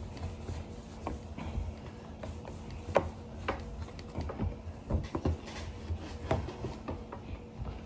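Hands rolling pretzel dough on a kitchen counter: scattered soft taps and rubs, over a faint steady hum.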